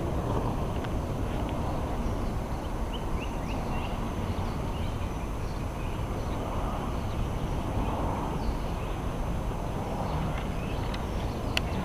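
Steady outdoor background noise with a low rumble, and scattered short high bird chirps.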